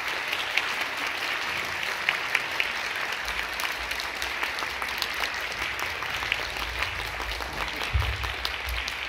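Audience applauding: a steady patter of many hands clapping, with a brief low thud about eight seconds in.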